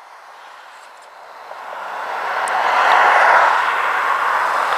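Road traffic passing: a hiss of tyres and engine noise that swells from about a second and a half in and then holds steady.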